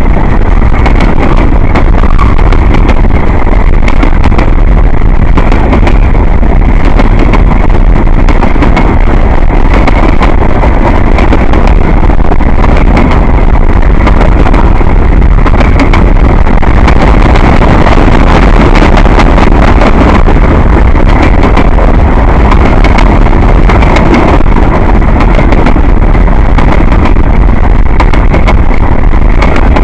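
Freight train cars rolling past close by: loud, steady rumble and roar of steel wheels on rail, with scattered clicks and clunks.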